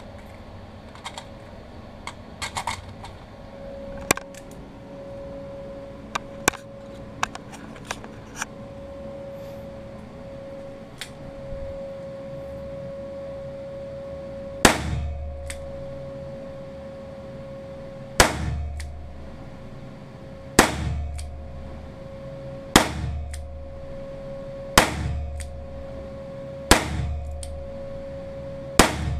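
Weihrauch HW5 T revolver firing .22 Magnum (.22 WMR) rounds: seven shots about two seconds apart, starting about halfway through, each with a short echo. Before the shots come light metallic clicks of the gun being handled, and a steady hum, which the reviewer had said would be the range's extractor fan, comes on a few seconds in. The load is one that the shooter rates as not among the hottest.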